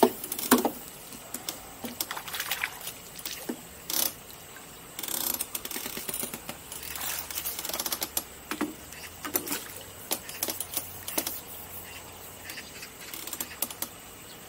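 Irregular clicks, taps and short rustles of fishing tackle being handled as a fish is played on a rod, drawn to the landing net and unhooked, with sharp clicks about half a second and about four seconds in.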